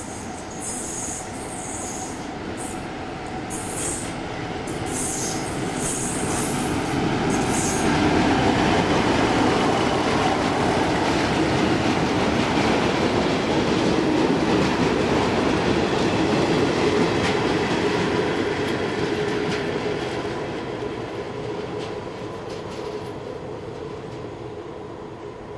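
A Class 47 diesel locomotive with its Sulzer twelve-cylinder engine hauls flat wagons past at close range. High wheel squeals come and go over the first several seconds. The engine and wheel noise swells to its loudest midway as the locomotive passes, then fades as it runs away.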